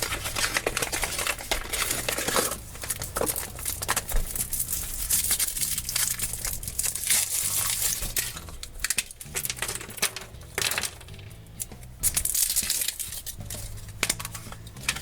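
Foil wrapper of a chocolate surprise egg being unwrapped by hand: continuous crinkling and tearing of the foil, with small clicks and crackles.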